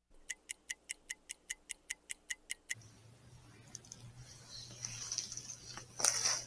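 Fast, even ticking like a clock sound effect, about five ticks a second for two and a half seconds, which then stops. After it comes a low steady hum with faint rustling, and a louder burst of rustling noise about six seconds in.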